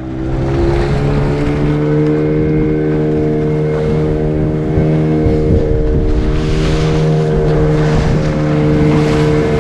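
Fishing boat's engine running steadily at a constant speed while the boat is under way, with a hiss over it that swells briefly twice, around the middle and near the end.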